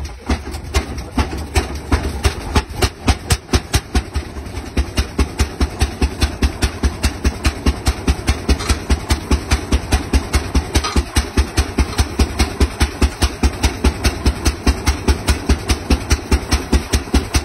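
1912 Rumely OilPull Type E 30-60 tractor's slow two-cylinder engine running after start-up, its exhaust beating at about four pulses a second. The beat is uneven for the first couple of seconds, then settles into a steady, even rhythm.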